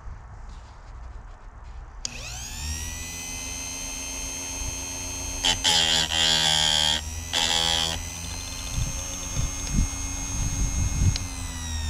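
Electric chainsaw sharpener's grinding-wheel motor switched on, its whine rising as it spins up about two seconds in. The wheel then grinds a chain tooth in two short bursts, the second briefer. Near the end the motor is switched off and the whine falls as it spins down.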